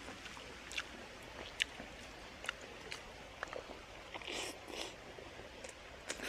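A person chewing food close to the microphone: wet mouth clicks throughout, with a couple of short crisp crunches about four seconds in.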